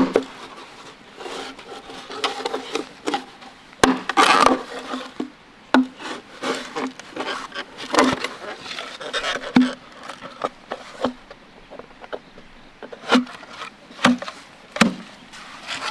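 Wood being chopped and handled: irregular knocks, a few of them sharp and loud, with scraping and rubbing between.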